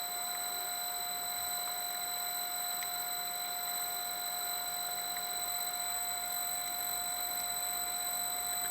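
A lathe running steadily, spinning the chuck while a diesel injector nozzle pintle is lapped in. It gives off a constant high-pitched electrical whine made of several steady tones.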